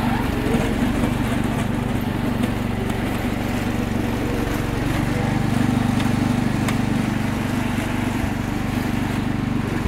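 Wheel Horse 310-8 garden tractor's Kohler engine running steadily while the tractor pushes heavy, wet snow with its front plow blade.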